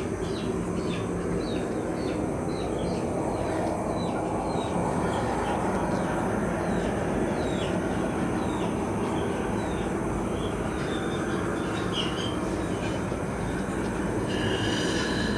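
Chicks peeping, many short high falling cheeps a few times a second, thinning out after the first several seconds, over a steady rushing rumble. A brief steady tone sounds near the end.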